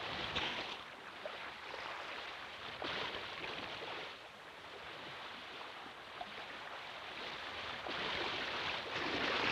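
Water rushing and sloshing in slow swells: a cartoon sound effect of a killer whale swimming through the sea.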